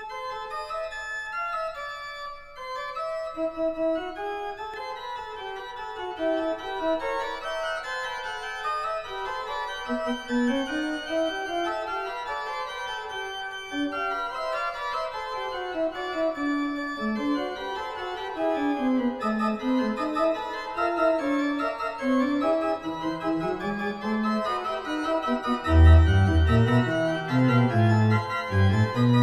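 Background organ music playing melodic runs that rise and fall; a heavy low bass part comes in near the end.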